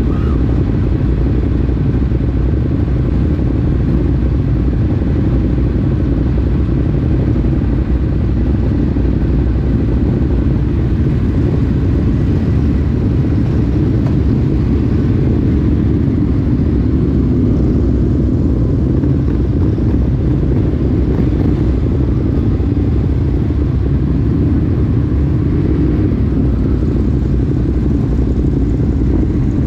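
Ducati Monster 821 Stealth motorcycle's L-twin engine running at a steady speed: a dense, even low rumble with no revving or gear changes.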